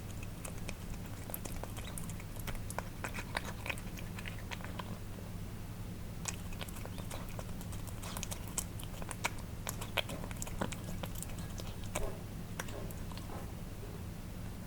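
Cats chewing and licking wet cat food: irregular wet smacks and clicks of tongues and jaws, busiest through the middle, over a steady low electrical hum.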